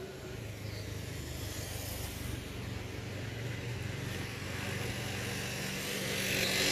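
A motor vehicle approaching and passing close by: a steady engine hum under a hiss of road noise that grows to its loudest near the end.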